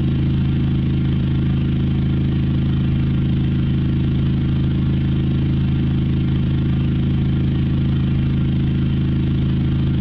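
A Mercedes-Benz G-Class (G-wagon) engine idling at a constant speed: a steady low hum with no change in pitch or level.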